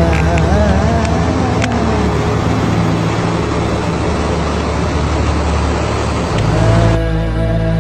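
Steady aircraft cabin noise: engine and airflow rumble with a low hum, changing abruptly near the end.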